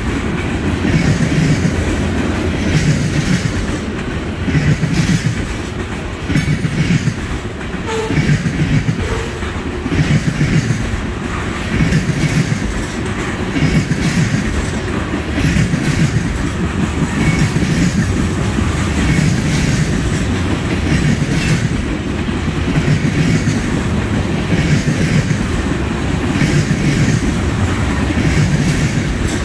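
Freight train of flatcars loaded with trash containers rolling past, the wheels clattering over the rail joints in a steady repeating rhythm, a burst of clatter about every second and a half over a continuous rumble.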